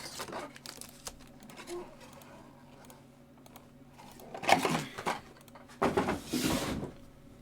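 Trading-card packaging being handled: a few light clicks and taps, then two short bursts of crinkling and tearing, about four and a half and six seconds in, as a pack or box wrapper is torn open.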